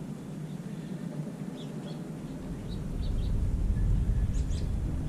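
Small birds chirping in short, scattered calls, with a low rumble that comes up about three seconds in and stays.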